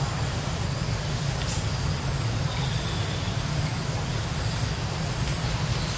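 Steady outdoor background noise: an even low rumble with a constant thin high-pitched whine above it, unchanging throughout.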